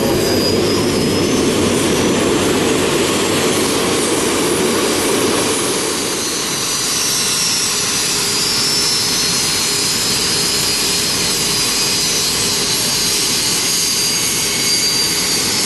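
Several Red Arrows BAE Hawk T1 jets running their Adour turbofan engines on the ground: a steady jet rush with a high-pitched turbine whine over it, the low rumble easing about six seconds in.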